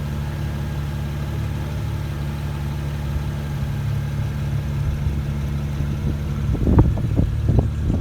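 BMW 335i's turbocharged inline-six idling steadily, with a few short knocks or bumps near the end.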